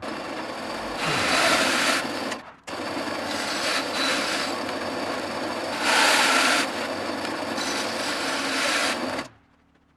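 A power tool working wood: a steady rasping, grinding noise that swells louder in several stretches and cuts off abruptly twice.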